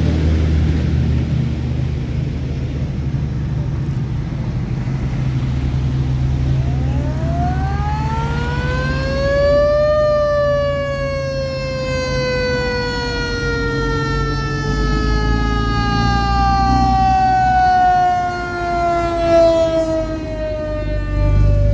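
A siren winds up in pitch over about three seconds, then slowly winds down over the next ten or so. Underneath is the steady running of the engines of passing WWII military convoy vehicles.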